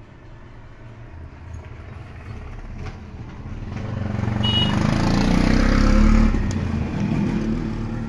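A motor vehicle passing by: a low engine rumble grows steadily louder, peaks about six seconds in, then starts to fade.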